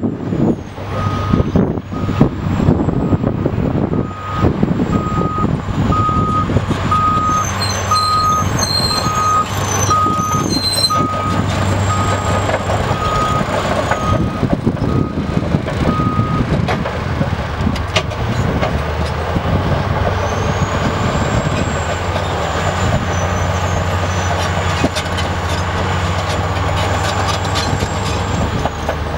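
Caterpillar D10T bulldozer's diesel engine running under load, with clanking from the tracks in the first few seconds. A reversing alarm beeps at an even pace for about the first half, then stops, while the engine runs on.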